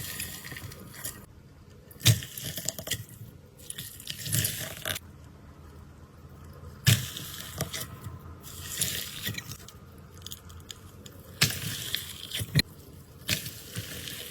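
Slime being squeezed and worked by hand, giving wet, sticky squelches and crackles in irregular bursts, with a few sharper pops.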